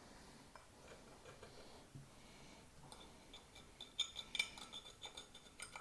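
Glass scorer scratching across the glazed surface of a china plate in quick, short, gritty strokes, starting faintly and growing busier from about four seconds in. It is scoring the cutting line to weaken the plate before it is cut.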